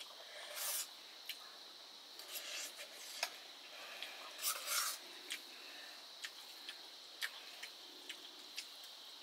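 Quiet mealtime sounds of rice and greens being eaten: scattered light clinks of dishes and cutlery and a few brief wet squishes, three of them a little louder than the rest.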